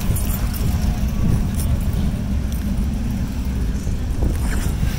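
Steady low rumble of cars on the street.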